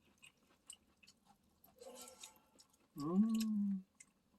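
A man chewing stew with small wet mouth clicks, then about three seconds in a short hummed 'mmm' of enjoyment that rises in pitch and holds briefly.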